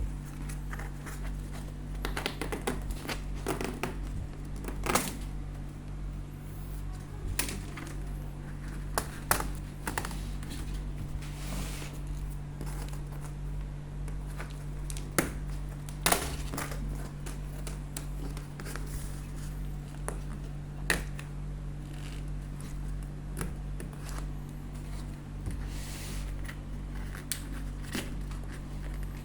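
Scattered light clicks and taps, a few sharper knocks among them, over a steady low hum.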